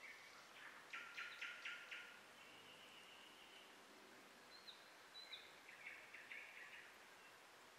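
Faint birdsong over a steady low outdoor hiss: a quick run of chirps about a second in, a few short whistled notes, and another run of chirps near six seconds.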